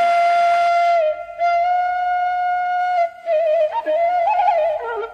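Background music: a solo flute melody holding long steady notes, then breaking into quick wavering trills about three seconds in.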